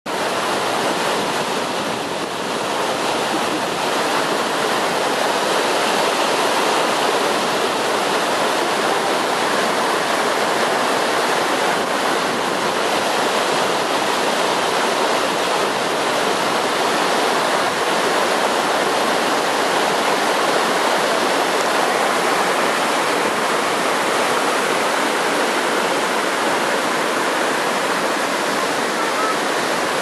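Waterfall's water rushing steadily, an even hiss-like noise with no breaks.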